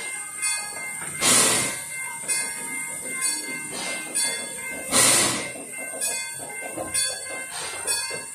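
Small steam locomotive dressed as Thomas the Tank Engine puffing as it moves slowly forward, with two loud hissing chuffs about four seconds apart and fainter beats roughly once a second between them. A faint steady tone runs beneath.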